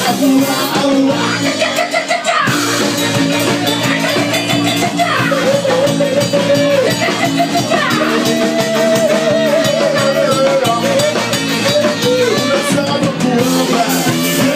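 Live rock band playing loudly, with guitar and drum kit under a held, wavering melody line.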